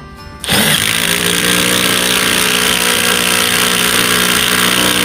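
Ridgid R87207 18V cordless impact wrench driving a 10 cm wood screw into wood. It starts suddenly about half a second in and runs steadily and loudly under load.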